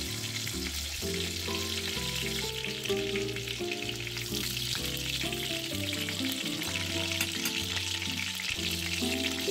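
Breaded pork cutlets sizzling and crackling in hot oil in a stainless steel frying pan as they are turned with a fork, with background music playing over it.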